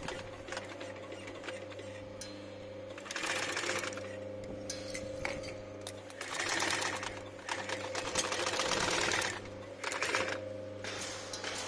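Single-needle walking-foot industrial sewing machine stitching upholstery leather in several short runs of a second or two, its 550 W clutch motor humming steadily between runs.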